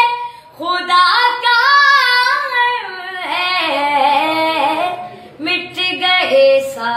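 A high solo voice chanting an Urdu noha, a Shia lament, in long held phrases that bend in pitch, with short breaks between the lines.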